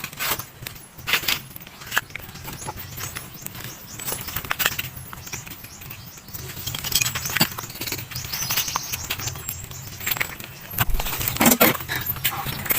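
Husk being peeled by hand from a sprouted coconut: irregular scratching and tearing of dry fibre with many sharp clicks, busiest near the end.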